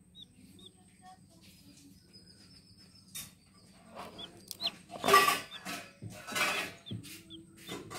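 Domestic chicks peeping in short, faint chirps, repeated throughout, with a hen giving two loud, harsh clucks about five and six seconds in.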